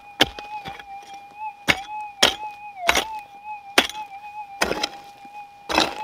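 Gold-prospecting metal detector putting out a steady, slightly wavering tone while a digging tool strikes the ground about seven or eight times at roughly one-second intervals, the last two strikes longer and scraping.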